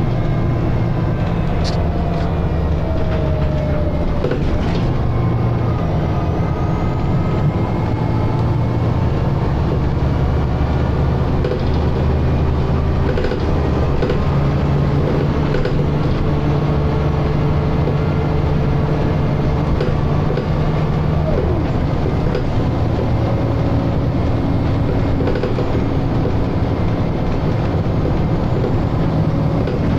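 Scania L94UA bus heard from inside while under way: a steady diesel engine drone, with the whine of its ZF automatic gearbox gliding up and down in pitch.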